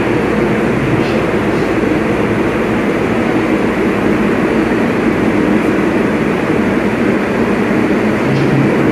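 New York City Subway R188 train running, a steady loud noise of motors and wheels on rail.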